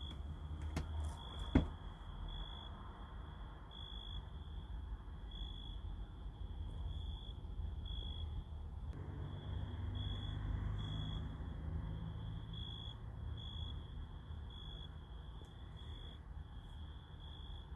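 A short high chirp repeats about once a second at uneven intervals, like a cricket, over a low steady rumble. One sharp click a second and a half in.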